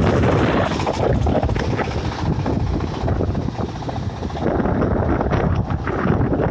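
Engine of a self-propelled conveyor-type corn sheller running steadily as the machine drives along a road, with wind buffeting the microphone. The hiss of the wind thins out about four and a half seconds in.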